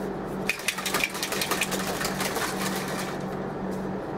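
Blender shaker bottle being shaken, its whisk ball rattling in fast clicks against the plastic through the water and carbohydrate powder. It starts about half a second in and stops about three seconds in.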